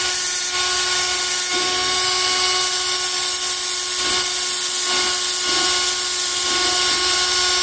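Cordless drill running at a steady speed with a flap wheel, sanding the raised ridges off a glue-on pipe coupling: a steady whine over a grinding hiss.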